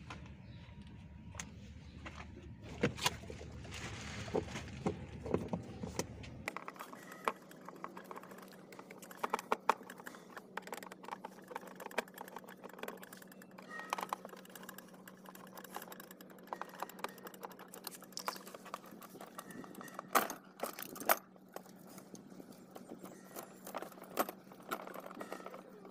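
Scattered clicks and small metallic clinks of a screwdriver and the metal steering linkage being worked loose from a plastic kids' ride-on car, with a few louder knocks about twenty seconds in.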